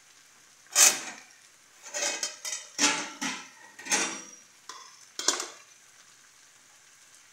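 A metal spoon clattering and scraping against a frying pan as cooked rice is added onto the vegetables: a string of sharp clinks and scrapes, several in quick succession.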